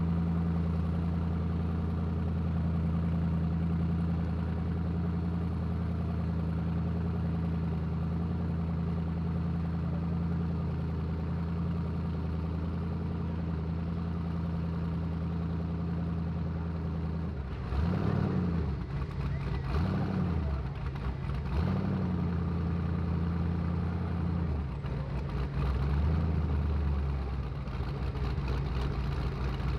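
Drag race car engines idling at the starting line with a steady, lumpy low note, then blipped three times in quick succession about two-thirds of the way through and once more near the end.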